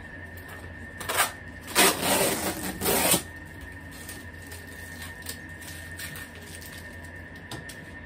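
Cardboard vacuum box being opened by hand: a short rasp about a second in, then a longer, louder ripping noise of over a second, followed by a few light clicks of handling.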